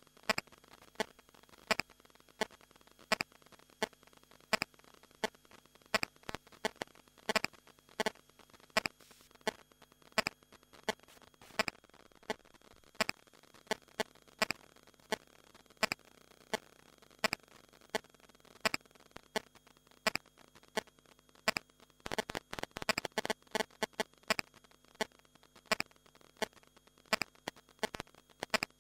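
Sharp clicks from a telephone at irregular intervals, about one or two a second, with a quick flurry of clicks a little past two-thirds of the way through, over a faint hiss.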